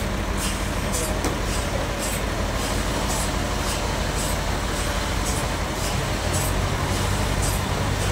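Sawmill bandsaw machinery running steadily: a constant low hum with a faint tick repeating about every half second. The hum grows heavier about six seconds in.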